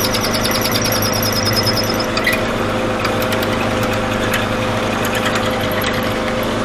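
Mortise machine's motor running steadily while cutting a mortise in timber. A rhythmic high squeal sounds over it and stops about two seconds in.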